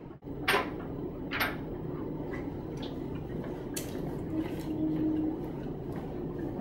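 Footsteps and sharp clicks on a hard floor in a tiled washroom, over a steady low hiss. The two loudest clicks come about half a second apart near the start, followed by fainter, scattered ticks.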